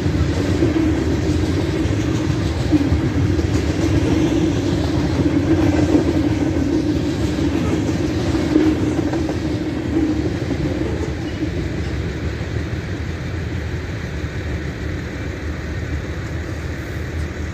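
Freight train rolling past, with steady rumbling of its cars on the rails that slowly fades over the last several seconds as it moves off.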